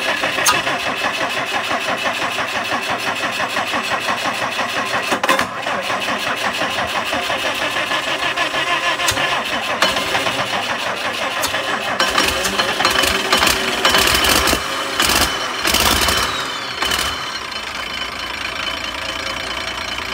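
Cummins diesel engine running on a test run, loud and rough-edged throughout. Past the middle it gets louder and harsher for a few seconds as it is pushed harder, then settles back.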